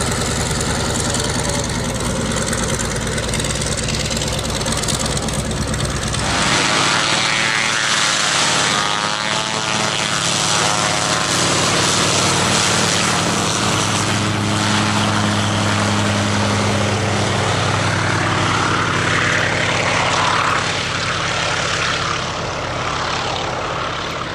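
PZL-106 Kruk agricultural aircraft taxiing, its engine and propeller running steadily as it goes by and then moves away. The sound changes about six seconds in, as the heavy low rumble drops away, and it fades slightly near the end.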